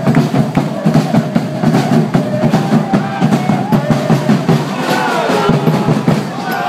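Football supporters' drums, bass and snare, beating a rapid, continuous rhythm, with crowd voices chanting and shouting over them.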